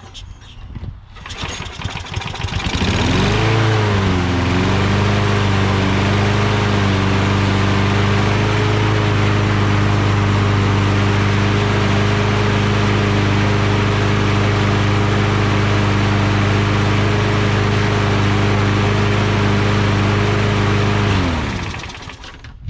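A Briggs & Stratton Quantum single-cylinder engine on a Toro Recycler walk-behind mower starts about three seconds in, freshly running after a carburetor clean. It wavers in speed for a moment, then runs steadily. Near the end it is shut off, and its pitch sags as it winds down to a stop.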